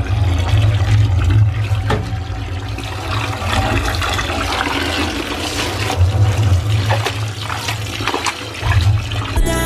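Soaked towels being hand-washed in a basin: water sloshing and splashing.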